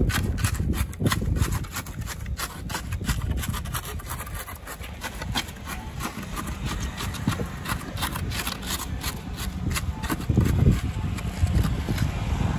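Wooden rammer being worked into wet concrete packed between the steel ring moulds: gritty scraping and knocking in quick, irregular strokes, over a steady low rumble.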